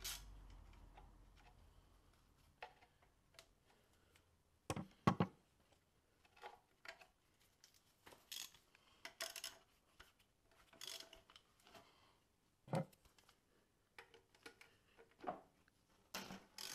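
Ratchet wrench clicking and hand tools clinking on engine metal while the alternator mounting bolts are undone. Scattered short clicks and knocks with quiet gaps between, the loudest a clatter about five seconds in and a single knock near thirteen seconds.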